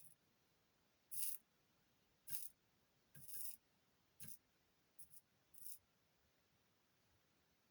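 Faint handling noises of small tools or parts at a repair bench: six short scrapes and clicks, roughly one a second, fading out about six seconds in.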